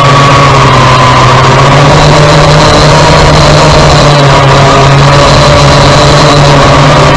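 Kai Deng K70C quadcopter's motors and propellers running in flight: a loud, steady drone whose pitch wavers slightly as the motors adjust.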